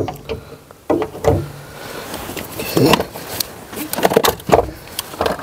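Handling noises of a car battery being worked into its tray and hold-down bracket: several knocks and clicks with scraping between them, and the clink of a spanner.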